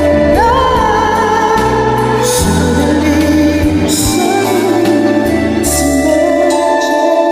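A pop ballad playing, with a sung vocal line held and gliding over bass and sustained instruments, and cymbal strokes every second or two.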